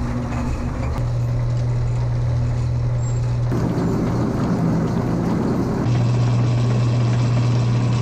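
Feed-handling machinery running: a feed mixer and chain conveyor with a steady low hum, and chopped feed pouring off them. The sound shifts abruptly about a second in, again midway, and near the end.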